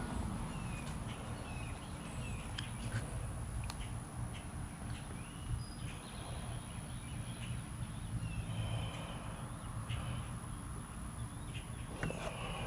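Faint bird chirps scattered over a steady low rumble of outdoor background noise, with a few soft clicks.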